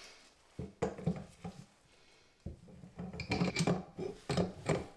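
Small metal plumbing parts and hand tools clinking and knocking as they are handled and fitted, with a quick run of rattling clicks in the second half.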